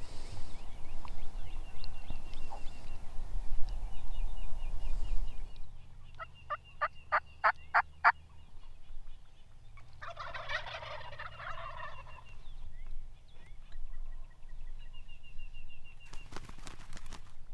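Wild turkeys calling: a run of about seven evenly spaced yelps, then a gobbler's rattling gobble a couple of seconds later, with a small bird chirping faintly in the background. A low rumbling noise fills the first few seconds.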